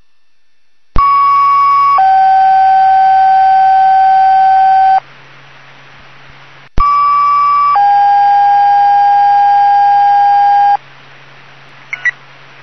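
Two-tone sequential paging tones on a fire dispatch radio channel, heard through a scanner. Each page opens with a radio key-up click, then a higher steady tone for about a second, then a lower steady tone held about three seconds. Two pages come back to back with slightly different tone pairs, alerting fire stations to respond.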